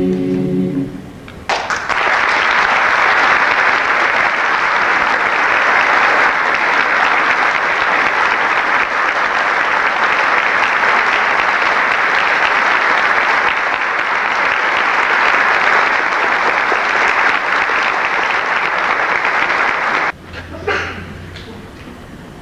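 A choir's last held chord dies away in the first second, then an audience applauds steadily for about eighteen seconds, the applause cutting off abruptly near the end.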